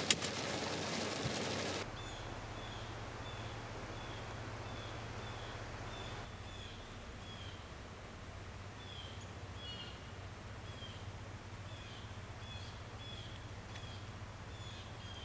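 Rain pattering on a vehicle window, cut off sharply about two seconds in. Then a bird calls outdoors in a long run of short high chirps, about two to three a second.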